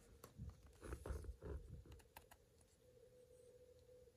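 Faint clicks and taps of hard plastic as a sword accessory is slotted into a plastic figure's hand, mostly in the first two seconds, then near silence.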